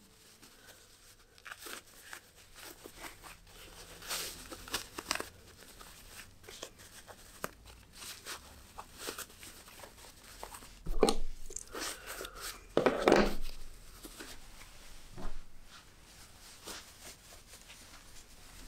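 Cotton fabric rustling and rubbing as a small stitched stocking is worked right side out by hand, in short scattered bursts, two louder ones a little past halfway.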